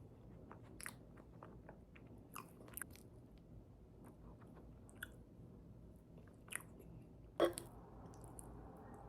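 A person chewing and biting into food close to the microphone, with scattered faint crisp crunches and one sharper, louder crunch about seven and a half seconds in.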